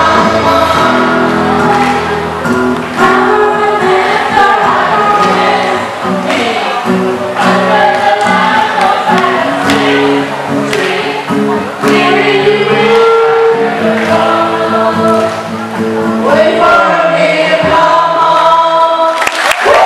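A group of young voices singing a song together, choir-style.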